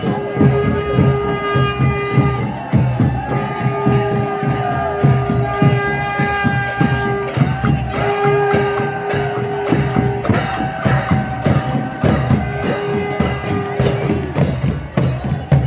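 Music: a fast, steady percussion beat under long held notes and a wavering melody line.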